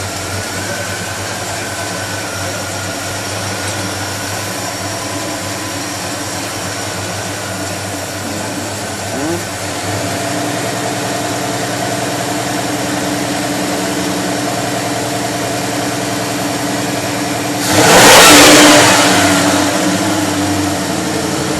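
1985 Chevy Caprice's 350 small-block V8 running at idle, just after its ignition timing was set and the distributor bolt tightened. The idle steps up slightly about halfway through, and near the end the engine gives one short, loud rev that falls back to idle.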